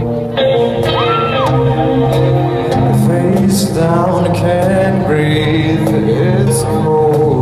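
Live band playing amplified synth-pop in a club: held keyboard and bass notes under regular cymbal hits, picked up by a phone's microphone from the crowd.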